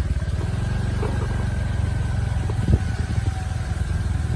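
A vehicle engine running steadily and close by, with a single thump about two and a half seconds in.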